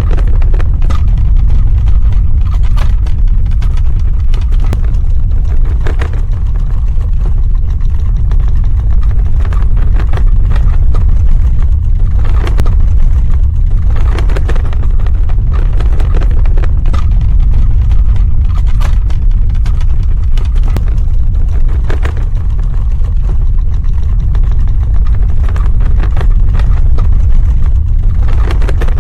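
Earthquake sound effect: a loud, continuous deep rumble with scattered crackles and rattles throughout.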